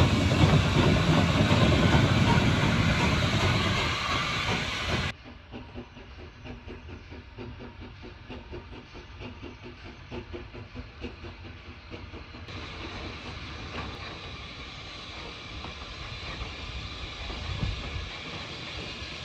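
Saddle-tank steam locomotive hauling coaches past at close range, running with steam escaping. About five seconds in it turns suddenly much quieter, heard from far off as the train works away up the line.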